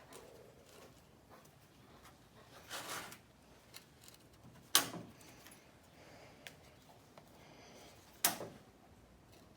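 Sheet-metal work: a short scraping slide, then two sharp metallic knocks about three and a half seconds apart, each ringing briefly, the second slightly fainter.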